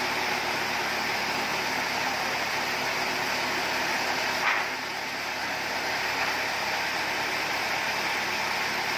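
A sawmill's engine-driven sawing machine running steadily with a hum and hiss, no wood being fed through it. One short clack comes about four and a half seconds in, after which it runs a little quieter.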